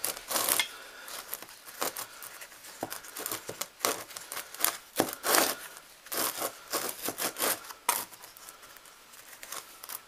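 A slurry-coated crucible being rolled and turned in a plastic tub of dry powder: a string of irregular scrapes and rustles against the plastic, fading near the end.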